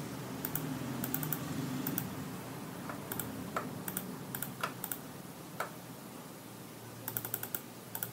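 Clicking of a computer keyboard and mouse, sharp clicks coming in quick clusters of two to four every second or so. A low hum sits under the first half.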